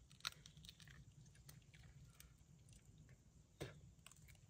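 Near silence broken by scattered faint clicks and crackles, with a sharper click about a quarter second in and another near the end.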